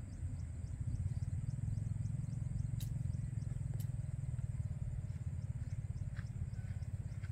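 An engine running steadily with a low, rapidly pulsing rumble.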